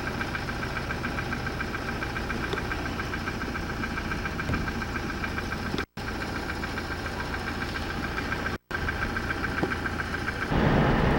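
Steady mechanical hum with a thin, rapidly pulsing high whine, cut by two brief total dropouts. Near the end a louder rushing noise takes over.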